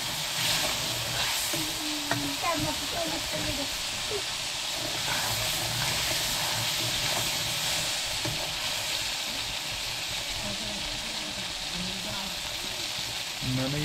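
Oil and spices sizzling steadily in an aluminium kadhai over a wood fire, with a metal ladle stirring in the pan during the first part.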